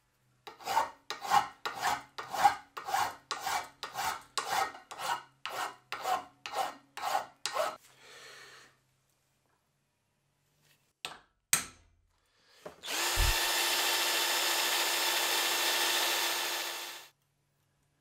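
Hand file drawn across the twisted steel of a forged door handle, about two strokes a second for some eight seconds. Then two sharp metal taps, and a power tool runs steadily for about four seconds.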